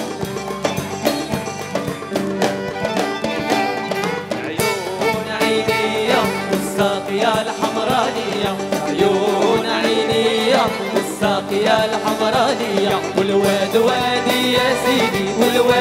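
Live band with keyboard and drums playing a Moroccan patriotic song from a medley, with two male singers singing the melody from about four to five seconds in.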